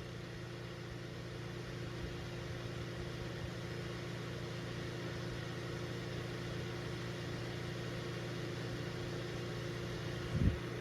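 Duracraft two-speed table fan running steadily on its high setting: an even motor hum with a rush of air. A short low thump sounds near the end.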